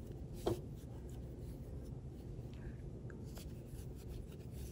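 Faint rustling and rubbing of chunky yarn as it is worked with a crochet hook, with faint ticks, over a steady low hum. A short sharp sound about half a second in is the loudest moment.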